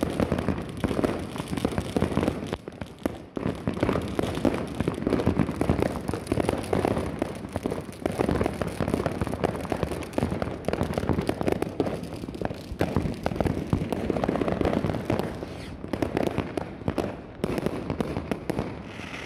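Fireworks going off in quick succession: a dense, continuous stream of bangs, pops and crackling from aerial shells bursting in the sky, with a brief lull about three seconds in.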